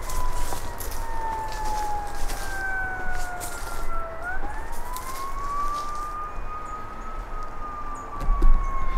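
Emergency-vehicle siren in a slow wail: one tone slides down for about four seconds, rises again, and begins another slow fall, over a steady background hiss.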